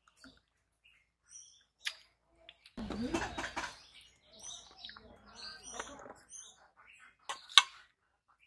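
Eating by hand from a steel plate: scattered small clicks and scrapes of fingers mixing rice and curry against the metal, with mouth sounds of chewing. The busiest stretch comes about three seconds in, and a sharp click near the end is the loudest. Birds chirp in the background.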